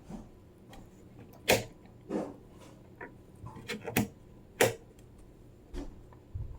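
A series of about nine light, irregular clicks and taps, a few louder ones near the middle, over a quiet room.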